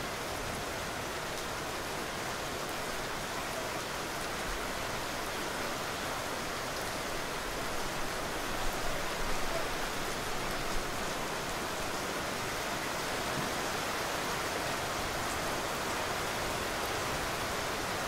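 Steady rain falling, an even hiss of many drops, with a few slightly louder patters around the middle.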